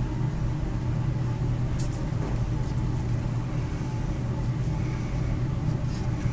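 Steady low hum of room equipment, with a brief click or rustle about two seconds in as trading cards are handled.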